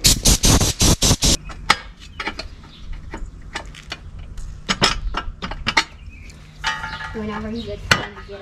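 Hand tools tapping and clinking on an aluminum oil pan while broken stud pieces are picked out of drilled-out bolt threads: a loud rapid rattling burst in the first second or so, then scattered light metal clinks, with a short pitched call near the end.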